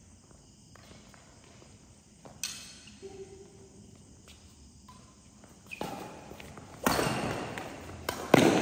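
Badminton rackets striking a shuttlecock in a rally: sharp hits, one about two seconds in, then a quicker run of hits in the second half, the loudest near the end, each ringing in a large hall.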